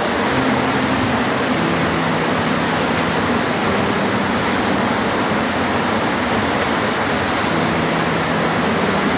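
Steady heavy rain, an even hiss with no breaks. Faint low humming tones come and go underneath it.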